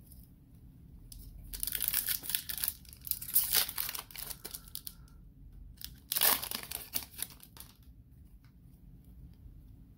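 Foil wrapper of a Panini Playoff football card pack being torn open and crinkled in the hands, a dense crackling from about a second and a half in until about five seconds in. The wrapper crinkles again briefly about six seconds in.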